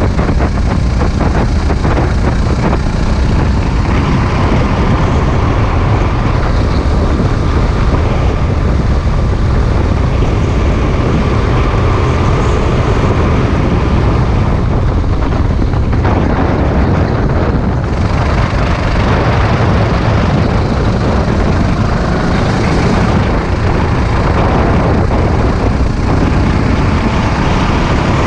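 Sodi RT8 rental kart's engine running at racing speed, its note rising and falling through the corners, heard close up from the kart with road rumble and wind over the camera.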